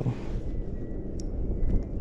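Low steady rumble of a boat out on the open water, with a faint thin high whine starting about half a second in.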